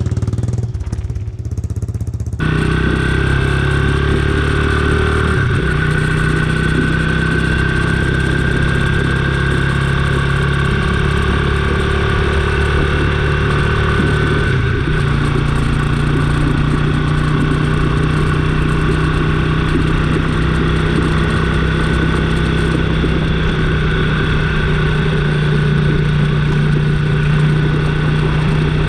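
Kawasaki Estrella motorcycle's single-cylinder engine running steadily while being ridden. Its pitch shifts slightly a few seconds in and again about halfway through.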